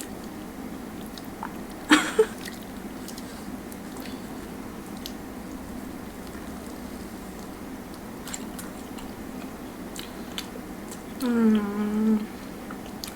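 Close-up eating sounds: biting and chewing a sandwich, with soft wet clicks and one sharp crunch about two seconds in. A short hummed voice sound comes near the end, over a steady low hum.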